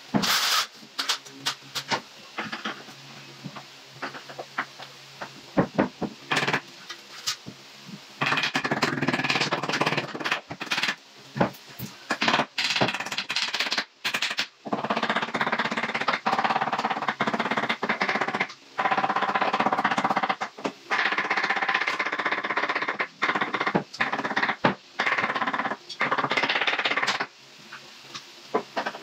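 Scattered knocks and clicks, then from about eight seconds in a cordless drill running in repeated bursts of one to three seconds, as when driving screws while hanging cabinet doors.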